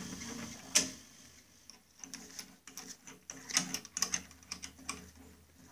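Scattered light clicks and taps of a metal clutch brake disc and tooling being handled and positioned on a drill-press table, with one sharper click about a second in, over a faint steady hum.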